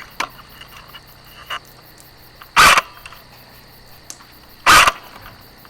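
Two loud, sharp airsoft gun shots about two seconds apart, over a faint steady chirring of night insects.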